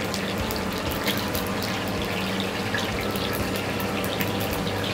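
Steady rushing hiss from a lit gas stove with a pan of oil heating on it, with scattered light crackles over a low hum.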